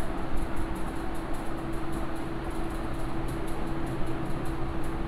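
Whiteboard eraser rubbed back and forth across a whiteboard in quick repeated strokes, about three to four a second, over a steady low hum.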